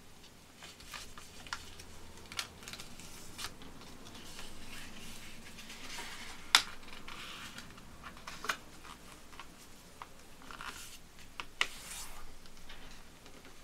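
Sheet of paper being folded and creased by hand, rustling and crinkling with scattered sharp crackles as the folds are pressed flat; the loudest crack comes about halfway through, another a couple of seconds before the end.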